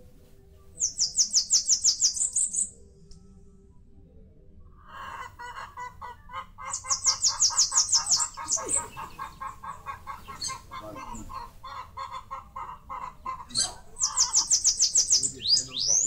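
Small songbirds singing. A high, fast trill of about a dozen notes, lasting under two seconds, comes three times about six seconds apart. A long run of lower, rapid chirps goes on for about eight seconds in the middle.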